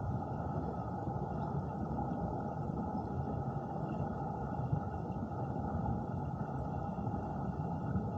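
Steady, muffled rush of stream water picked up by a camera submerged in the current, dull and low with no distinct events.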